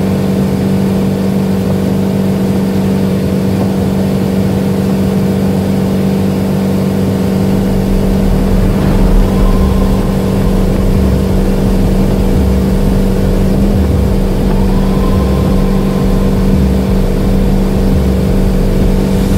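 Tow boat's engine running steadily at towing speed: a loud, even drone.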